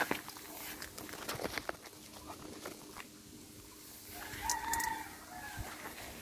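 A chicken calls once, a pitched call about a second long, roughly four seconds in. A sharp click at the very start and a few faint rustling clicks come before it.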